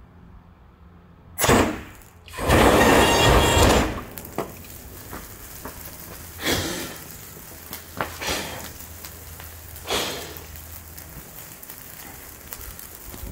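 A homemade methanol flamethrower firing: a short burst about a second and a half in, then a loud whoosh of flame for about a second and a half. After that, burning grass crackles, broken by three short puffs.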